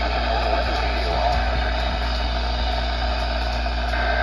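Weather radio receiver static: a steady noisy hiss over a low hum. Near the end, a brief digital data tone burst begins, typical of the end-of-message SAME tones that close a weather radio broadcast.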